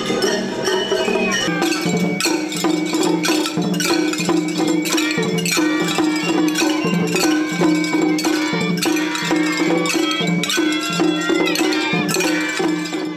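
Shagiri festival music: bamboo shinobue flutes play a high melody over small rope-tensioned taiko drums and a hand-struck brass gong keeping a steady beat.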